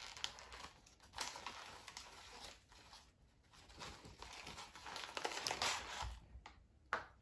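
Brown kraft wrapping paper crinkling in irregular rustling bursts as it is unwrapped by hand from a small plant pot. It is loudest about five to six seconds in, with a short sharp crackle near the end.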